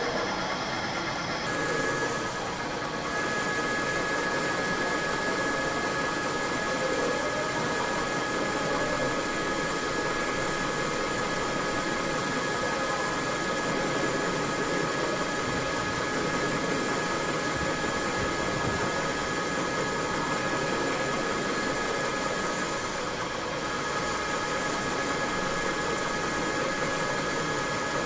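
Metal lathe running steadily while its cutting tool turns an external trapezoidal thread on a steel bar. A thin, steady high whine joins the machine noise about a second and a half in.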